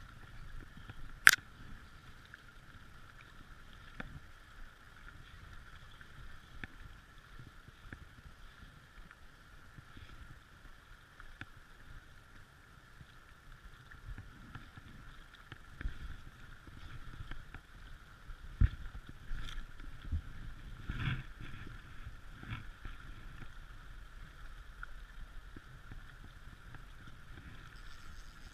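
Steady faint hiss and low rumble with scattered knocks, the sound of a small boat on water, and one sharp click about a second in.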